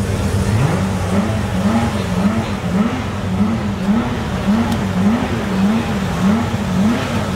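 Porsche 911 GT3 Cup race car's flat-six engine running, its revs rising and falling in an even rhythm about twice a second.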